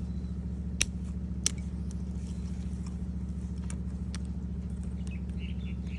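Two sharp clicks, about a second apart, as the orange plastic clip is worked out of the old electrical connector, over a steady low hum.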